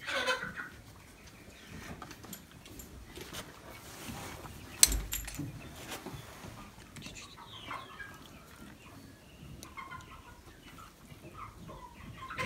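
Faint bird calls in the background, with one sharp knock about five seconds in.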